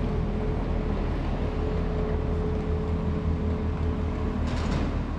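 Steady low rumble of a motor vehicle running, with a thin steady hum over it that stops about four seconds in.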